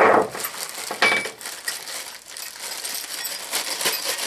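Plastic bags and bubble wrap crinkling as drill-press handles are unwrapped by hand, with scattered light clinks and knocks of the metal parts and a sharper knock right at the start.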